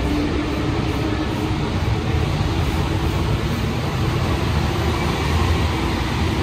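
Interior running noise of an Alstom NS-93 rubber-tyred metro car in motion: a steady, dense rumble of the tyres and running gear.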